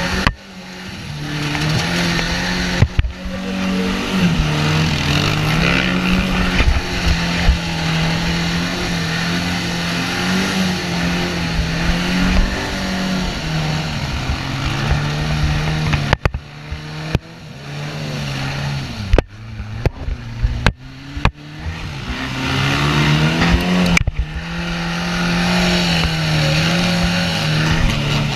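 Engine of an off-road cage-frame buggy running and revving, its pitch rising and falling, with several short abrupt breaks in the second half.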